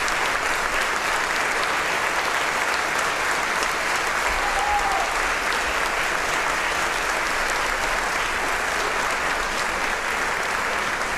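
Large concert audience applauding: steady, dense clapping from many hands, a sustained ovation.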